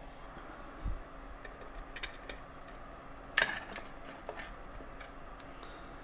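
Small metal clicks and clinks as a picked lock cylinder is worked loose and taken out of a lockpicking vise. There is a dull thump about a second in and one louder metallic clack about three and a half seconds in.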